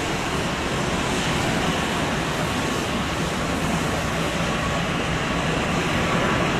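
Airbus A380's four turbofan jet engines at takeoff thrust during the takeoff roll: a steady, loud jet noise that grows slightly louder near the end.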